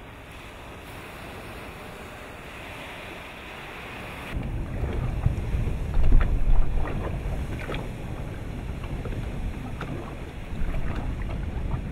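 Wind and water noise heard from a boat, then, about four seconds in, a sudden louder low rumble with scattered cracks and pops as a volcanic avalanche of hot rock and ash (a pyroclastic flow) tumbles down to the shore and into the sea, with wind buffeting the microphone.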